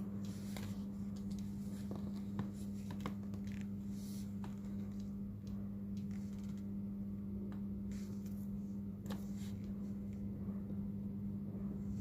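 Light scraping and clicking of small tools against a phone during a screen repair, a dozen or so short strokes scattered irregularly, over a steady electrical hum.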